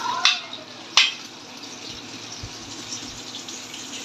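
Slices of bottle gourd tipped into a pot of boiling water, splashing in, with a sharp clink about a second in; then a steady hiss of the boiling water.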